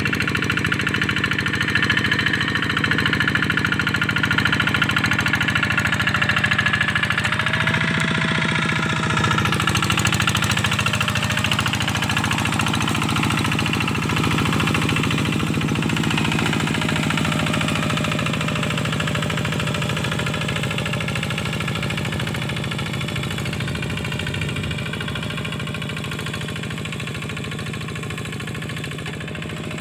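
Diesel engine of a two-wheel walk-behind hand tractor running steadily under load while it pulls a harrow through a flooded rice paddy. The sound grows gradually fainter over the second half.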